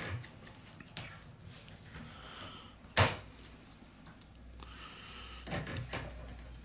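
Small clicks and taps of a smartphone's internal metal bracket and connectors being pressed into place on the motherboard, with one sharp, louder click about three seconds in.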